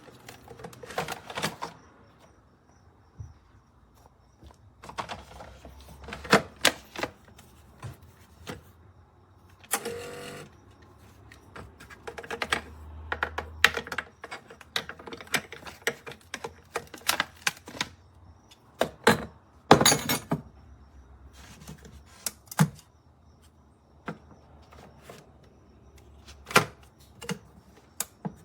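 Irregular clicks, taps and knocks of hard objects being handled, with a short scraping rustle about ten seconds in.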